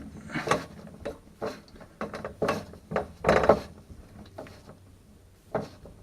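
Hand screwdriver tightening screws into copper-pipe clips: a series of short scraping, clicking turns about once a second, dying down to a quieter pause near the end.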